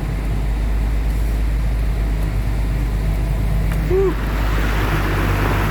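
Truck engine running with a steady low drone. A hiss grows in over it from about four and a half seconds in.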